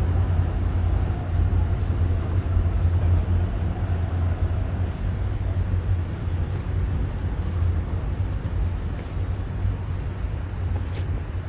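Steady low rumble with an even hiss over it: continuous outdoor background noise, with no distinct events.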